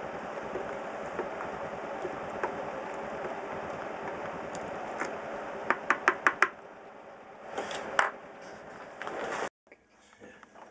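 A plastic ladle stirring milled grain into hot strike water in a plastic cooler mash tun, a steady wet churning, followed about six seconds in by a quick run of about five knocks as the ladle strikes the cooler. The sound cuts off suddenly near the end.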